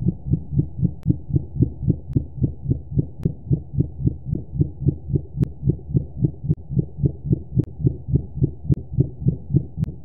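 Hydrophone recording of a low underwater pulsing, about four even pulses a second over a steady low hum.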